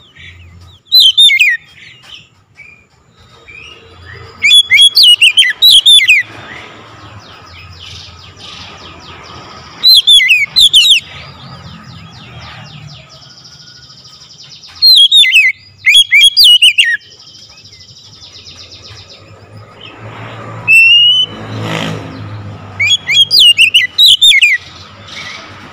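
Oriental magpie-robin singing loudly: short bursts of clear whistles that slide downward, repeated about every five seconds.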